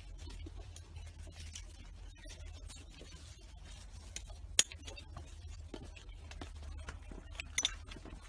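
Max Vest II seat-mount strap, webbing and metal buckle hardware, being handled and fastened around a school bus seat back: light rustling, with a sharp metallic click about four and a half seconds in and a quick double click near the end, over a steady low hum.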